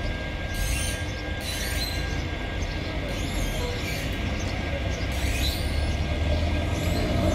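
Heavy truck engine running with a steady low rumble as the truck pulls out and turns, with a few short high squeals over it.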